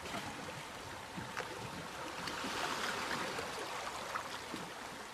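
Oars dipping and water washing along a rowed wooden boat, a soft steady splashing that swells a little in the middle, with a few faint knocks.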